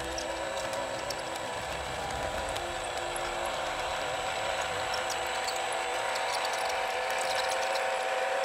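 Full-hydraulic RC Volvo excavator working: its hydraulic pump whines steadily with a raspy, gear-like rattle, slowly growing louder.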